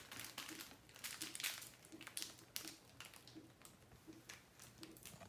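Small plastic glitter packets crinkling with irregular sharp crackles as they are handled and opened.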